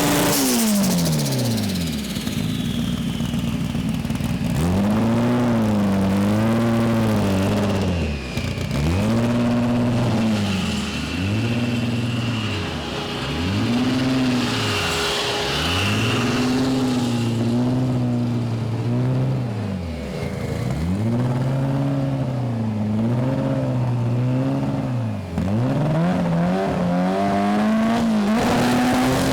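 Drag racing car's engine revved over and over, the revs climbing and dropping back about eight times, every two to three seconds. At the start an engine's pitch falls away as it winds down.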